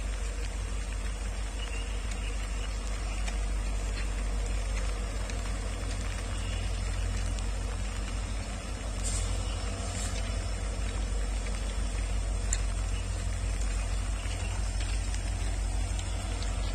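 Low, steady rumble of train 16596 approaching from a distance along the Konkan Railway line.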